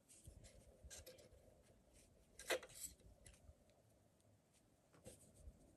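Near silence with faint handling noise: fingers pressing and rubbing crocheted cotton petals together, a few soft rustles and light clicks, the loudest about two and a half seconds in.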